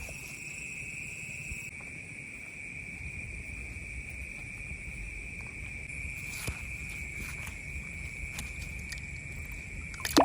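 Steady night insect chorus, one continuous high trill with a fainter, higher band above it and a low rumble underneath. A single sharp knock comes just before the end.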